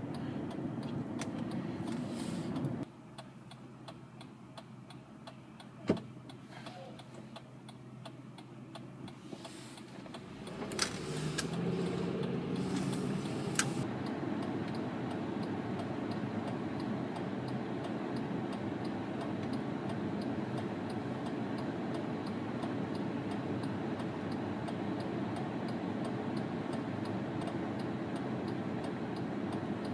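Inside a 2005 Honda Pilot, the turn-signal relay clicks steadily over the cabin hum. The cabin is quieter from about three seconds in, then the engine rises and road noise grows about eleven seconds in as the SUV pulls away, and the noise holds steady after that.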